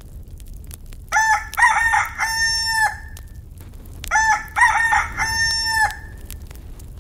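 Rooster crowing twice, a full cock-a-doodle-doo each time, about two seconds long. The second crow starts about three seconds after the first.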